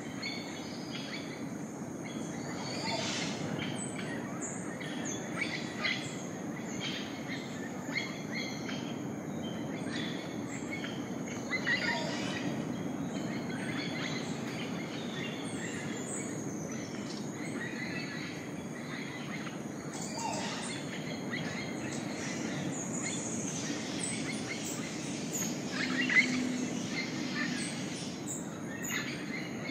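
Rainforest dawn chorus: scattered bird chirps and calls over a steady high-pitched insect drone and a low, even background noise.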